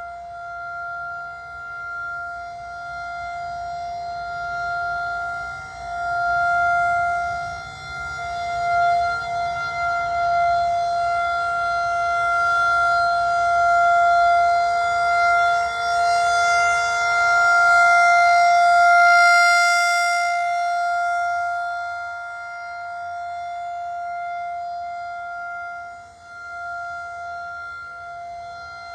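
Federal Signal 2001-SRN electromechanical rotating outdoor warning siren sounding a steady single tone at full speed. Its loudness repeatedly swells and fades as the rotating horn sweeps around, and it is loudest about two-thirds of the way through.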